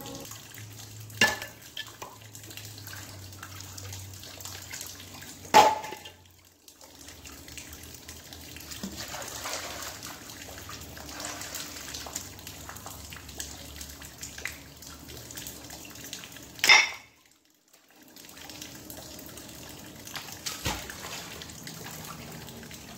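Running river water with three sharp knocks, the loudest about five and a half seconds in and past the middle, as a heavy magnet on a rope strikes rocks and rusted scrap iron. The sound cuts out briefly twice.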